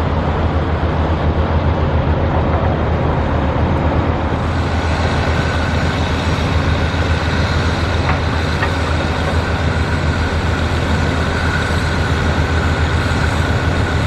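Steady rumble of passing road traffic, growing fuller a few seconds in, with a faint steady high whine joining it.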